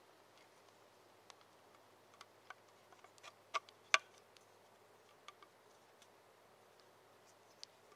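Scattered light clicks and taps against a quiet background, the two loudest close together about three and a half to four seconds in.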